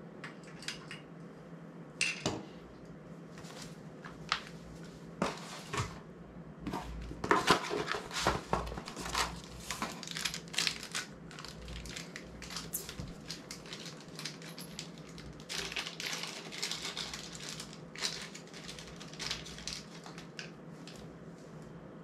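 Small hard camera quick-release parts (YC Onion Nut Q1) being handled, fitted and set down on a tile floor: scattered clicks, taps and knocks. There is a dense run of quick clicks about seven to eleven seconds in, and another around sixteen seconds.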